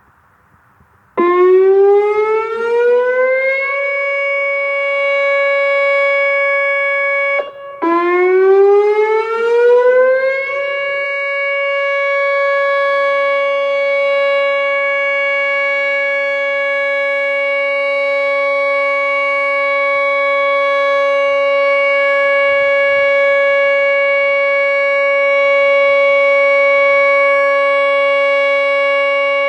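Whelen WPS 2910 electronic outdoor warning siren sounding its monthly test. It starts about a second in with a rising glide up to a steady tone, drops out briefly, glides up again, and then holds one steady tone.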